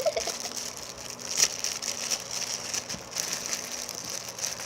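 Handling noise of a squishy toy: faint rustling and crinkling with scattered short crackles, one sharper crackle about a second and a half in.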